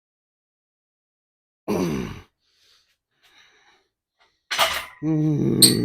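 A man groaning and breathing hard with effort during a set of weighted hamstring exercises. A short falling groan comes about two seconds in, then a sharp exhale and a longer strained groan near the end.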